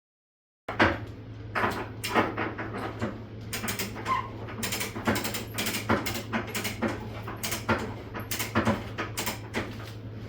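Irregular metallic clicks and clanks of tools and parts being handled during a vehicle teardown, over a steady low electrical hum. The sound starts abruptly just under a second in.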